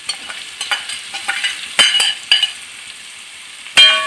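Raw mango pieces sizzling as they go into hot oil in a metal kadai and are stirred, with a steel spatula scraping and clinking against the pan. The loudest is a sharp ringing clank near the end.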